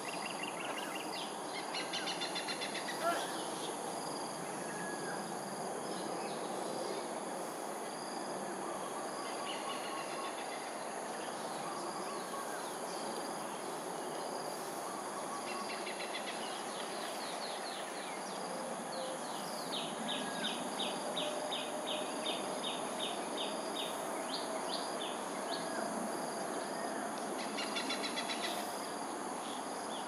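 Insects calling steadily with high constant tones over a low background hiss, while a bird gives several runs of quick repeated trilled notes, the longest about three seconds long some twenty seconds in.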